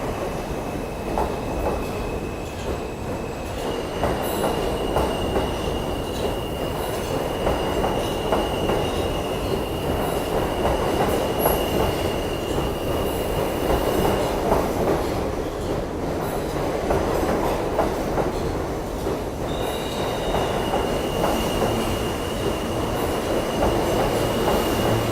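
New York City subway train running on the rails with a steady rumble, its wheels giving a thin high-pitched squeal that stops about midway and comes back near the end.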